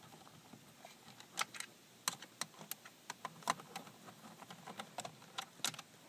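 Irregular light clicks and taps of a screwdriver working out the screws that hold a power window switch in a plastic door panel, about a dozen scattered ticks.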